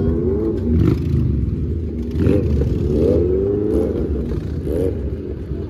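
Motorcycle engines revving again and again over a steady low rumble, each rev rising and falling in pitch.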